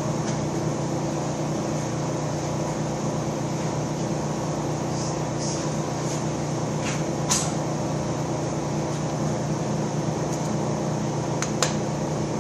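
Steady electric-motor hum of a horizontal boring machine running, with two light, sharp metallic clicks partway through and near the end as a dial indicator is set on the table ways.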